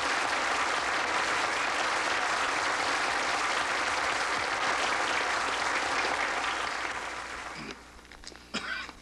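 Studio audience applauding, dying away about seven seconds in; a couple of brief short sounds follow near the end.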